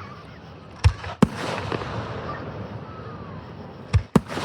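Fireworks display: aerial shells bursting with sharp bangs, two about a second in and two more in quick succession near the end.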